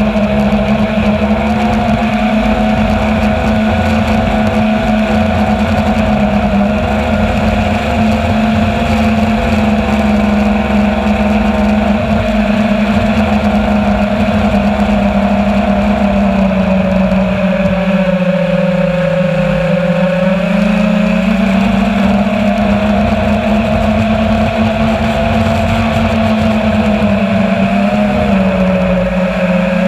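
Martian 210 FPV racing quadcopter's brushless motors and propellers whining steadily in flight, heard loud from the onboard camera. The pitch sags for a few seconds past halfway and again near the end as the throttle eases, then climbs back.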